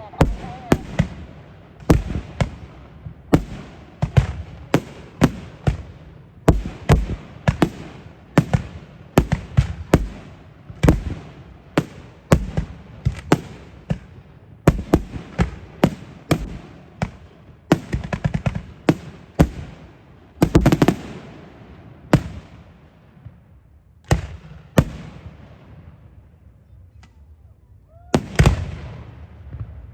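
Fireworks going off: sharp bangs in quick succession, about two a second, with a heavier blast about twenty seconds in. After that the bangs thin out to a few seconds' lull before they start again near the end.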